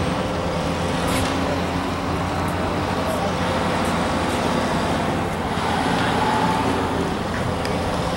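Steady background rumble of road traffic with a faint steady hum, and a few faint clicks.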